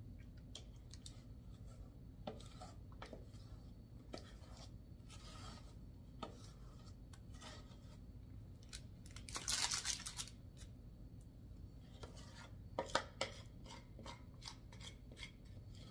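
Metal spoon scraping thick fudge out of a stainless steel saucepan into a parchment-lined pan: soft, scattered scrapes and light taps, with a longer, louder scrape about halfway through and a few sharper clicks near the end.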